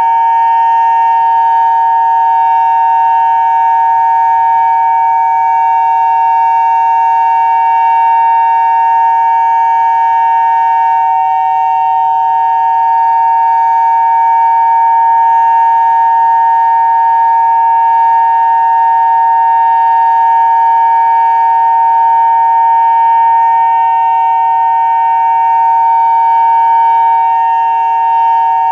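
Federal Signal Modulator 5020 electronic outdoor warning siren sounding a steady two-note tone, held without rising or falling, its loudness swelling slightly now and then.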